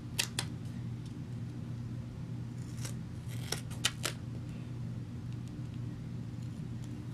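Scissors snipping through duct tape, trimming the excess around a taped slipper sole: two quick snips just after the start and about four more between three and four seconds in, over a steady low hum.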